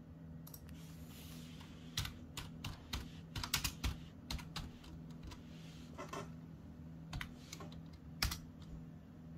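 Computer keyboard being typed on in irregular bursts of keystrokes, most of them a couple of seconds in, with a few more clicks later, over a steady low hum.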